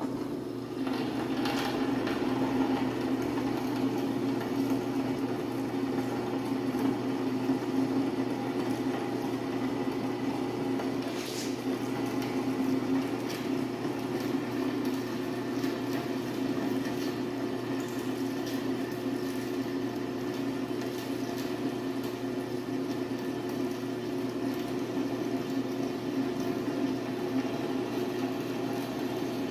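Drill press running steadily while a twist bit is fed through stacked steel plates, cutting half-inch holes. A steady motor hum, with an occasional light click.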